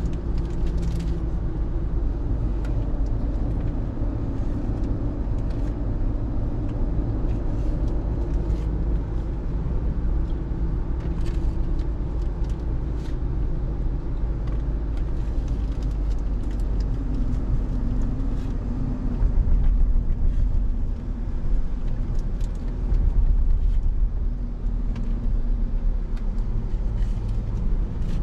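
Road and drivetrain noise inside the cabin of a 2023 Chevrolet Colorado ZR2 pickup driving and slowing down: a steady low rumble that swells briefly twice in the last third.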